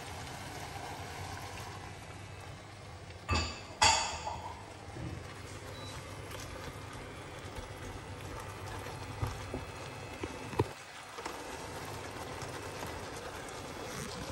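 Large prawns frying in a pan, a steady sizzle. The spatula strikes the pan twice with sharp clanks about three and four seconds in, and there are a few lighter clicks later.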